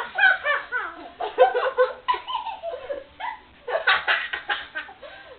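Girls laughing hard, high-pitched giggling in bursts with a short pause midway.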